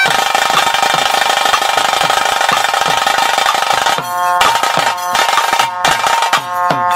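Traditional Bhuta Kola ritual music: a fast drum roll under a wind instrument holding one steady note. About four seconds in it changes to a pipe melody over a slower drum beat.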